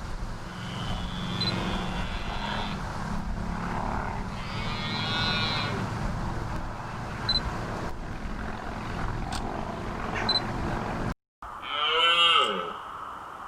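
Red deer stags roaring in the rut: several deep, drawn-out calls, the loudest a shorter bellow near the end that falls in pitch.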